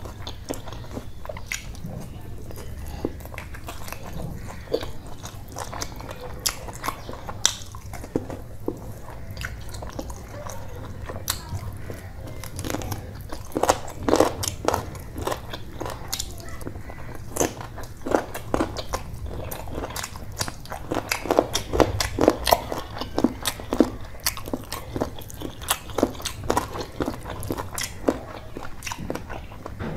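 Close-miked chewing and lip smacking of a man eating rice and curry by hand: a steady stream of short, wet mouth clicks, busiest about halfway through and again about three quarters through.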